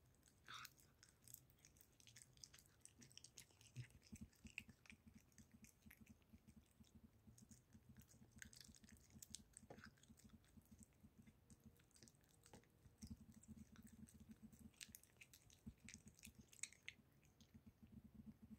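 Tabby cat eating liverwurst close up: faint, wet licking and chewing, with rapid smacking pulses and fine clicks of tongue and teeth on the soft sausage.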